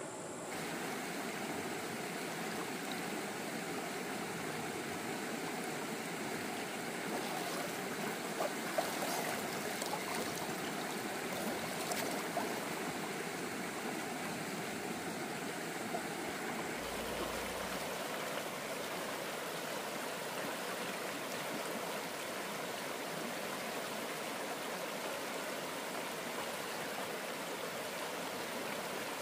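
Stream water flowing steadily over rocks, with a few short clicks or splashes about nine and twelve seconds in.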